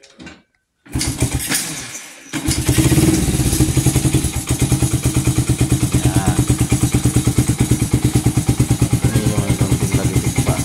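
Honda XRM110's single-cylinder four-stroke engine starting about a second in and, from about two and a half seconds, idling steadily with an even, rapid pulse. It is the idle check after a too-tight intake valve clearance, the cause of its poor compression and hard starting, was reset.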